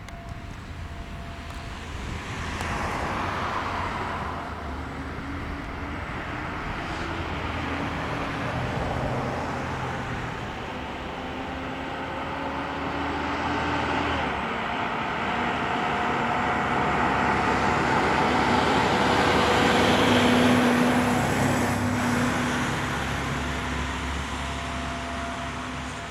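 Road traffic passing, the noise rising and falling and loudest about twenty seconds in. Faint distant outdoor warning sirens sound underneath.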